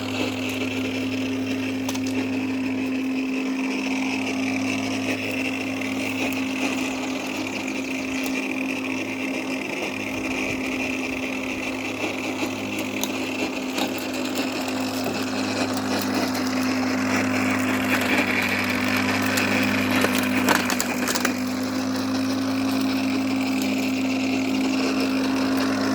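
Worx 40 V cordless electric lawn mower running steadily while cutting grass: a constant motor-and-blade hum over the rustle of clippings, with a few sharp ticks about three quarters of the way in.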